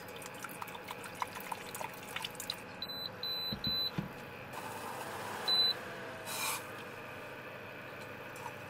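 Electronic appliance beeps: three quick high beeps, then one more about two seconds later, among light clicks from handling.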